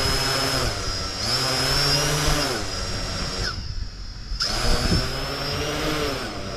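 Holybro X500 V2 quadcopter's brushless motors and propellers spinning up and down on the ground in short throttle blips, short of lift-off. Each run is a whine that rises and then falls in pitch; one dies away under a second in, and two more come about a second in and again after about four seconds.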